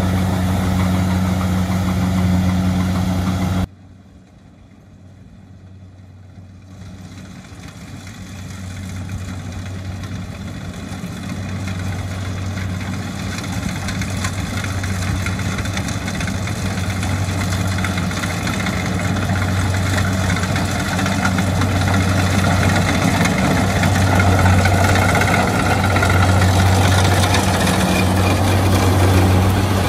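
Kubota DC70 rice combine harvester's diesel engine running steadily while the machine cuts and threshes rice, a constant low hum. About four seconds in the sound drops off suddenly, then comes back faint and grows steadily louder as the harvester draws nearer.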